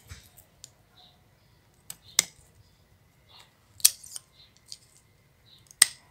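Scissors snipping twigs off a bonsai: three sharp snips, each about two seconds apart, with faint rustling of leaves between.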